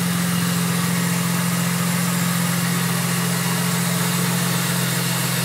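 BMW Z4 M's S54 straight-six, fitted with a VT2-500 supercharger, idling steadily after a cold start, with no revs.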